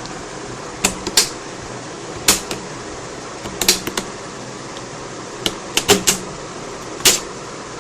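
Plastic snap clips of a Lenovo G570 laptop's screen bezel popping loose as the bezel is pried away from the display lid: a dozen or so sharp clicks, singly and in quick clusters, over a steady background hiss.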